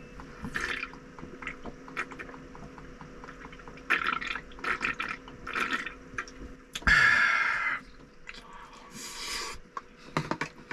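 A person drinking beer from an aluminium can in long pulls, with repeated gulping and swallowing sounds. There is one louder, longer burst about seven seconds in.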